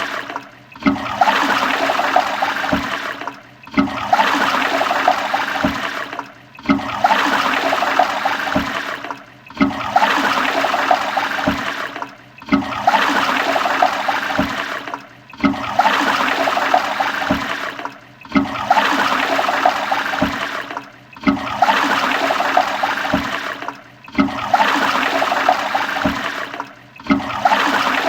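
Toilet flushing: rushing, gurgling water that repeats about every three seconds, each flush starting abruptly at full strength and fading away before the next.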